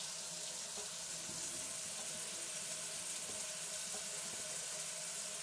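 Kitchen faucet running a steady stream into a stainless steel sink, left on so the water gets hot.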